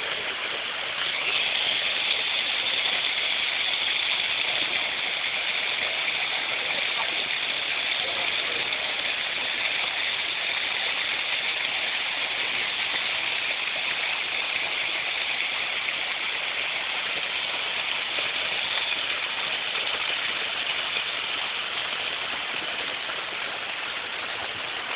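Waterfall: water pouring down a rock face, a steady rushing hiss that gets a little louder about a second in.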